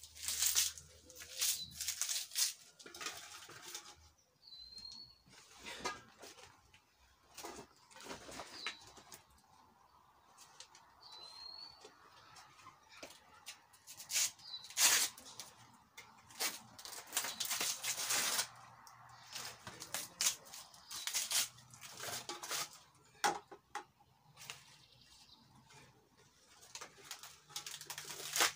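Fresh banana leaves rustling and swishing in irregular bursts as they are handled, torn and pressed into a metal pot. A small bird chirps twice.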